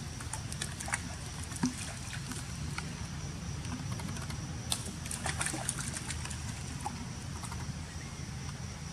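Small, scattered splashes and clicks from young macaques wading and playing in a shallow muddy puddle, over a steady outdoor background with a constant high tone.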